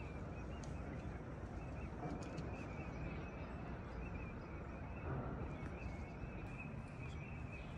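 Outdoor ambience: a steady low rumble of wind with birds calling continuously in a high, wavering chorus.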